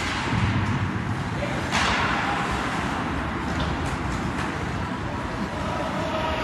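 Ice hockey game sounds in an indoor rink: skates scraping the ice, with a sharp scraping hiss about two seconds in and a few light stick-and-puck clicks, over a steady arena rumble and faint voices.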